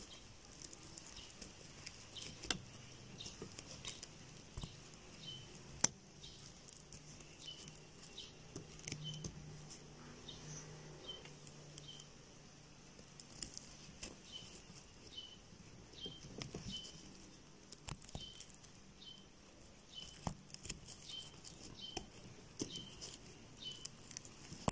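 Crochet handling noise: a hook working single crochet stitches in t-shirt yarn, with faint rustling and many small, irregular clicks and ticks.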